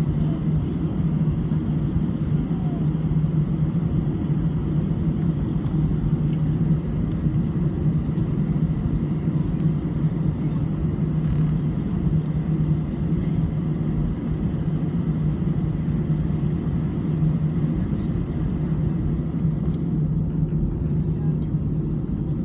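Steady low drone of an Airbus A319's jet engines and airflow, holding even with no rise or change in pitch.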